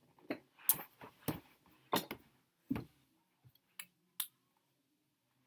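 About nine irregular plastic clicks and knocks as buttons and keys on a Casio CTK-2300 keyboard are pressed, with no notes sounding. They stop a little past four seconds in.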